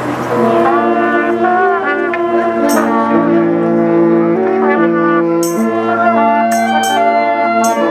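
Brass ensemble playing a slow passage of sustained, held chords, beginning a moment in, with a few short sharp clicks over it.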